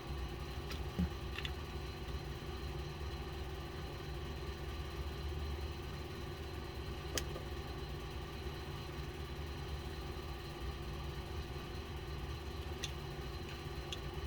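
Steady hum of a large air conditioner running, with a few faint, short clicks near the start, in the middle and near the end.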